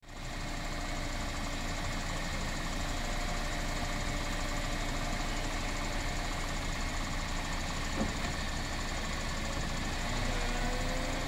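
MINI Cabrio's 1.6-litre 16-valve four-cylinder engine idling steadily. There is a single click about eight seconds in, and a faint rising whine near the end.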